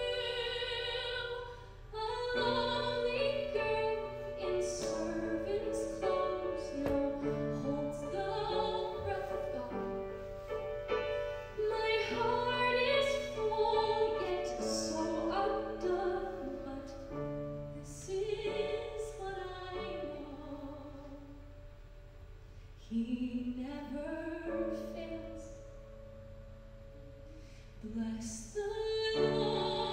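A woman sings a slow, sustained ballad with piano and cello accompaniment. The music drops to a softer passage in the latter half before swelling again near the end.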